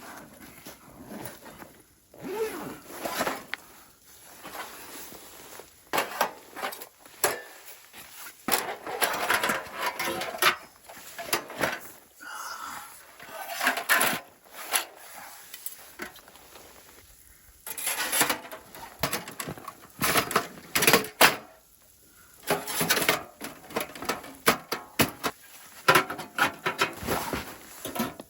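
Irregular rustling, knocks and clatter of camping gear being handled and unpacked, with many sharp clicks scattered throughout and no steady sound underneath.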